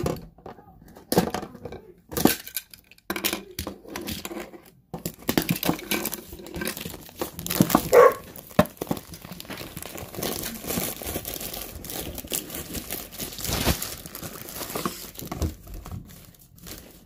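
Plastic shrink wrap crinkling and tearing as it is pulled off a metal lunch box tin, with scattered sharp clicks and knocks, the loudest about eight seconds in.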